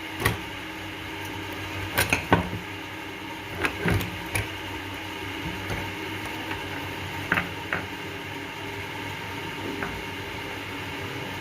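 Scattered light clicks and taps from speaker wires and their connectors being handled, about nine in all, over a steady low hum.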